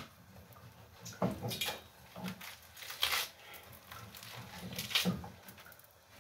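Leafy greens being torn and stripped from their stems by hand, with rustling leaves and a few crisp snaps of stems.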